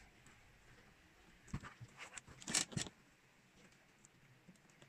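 Hands handling a bag woven from plastic packing strap while fitting a rivet into its rim. There is a cluster of short clicks and rustles from about one and a half to three seconds in, then a few faint ticks.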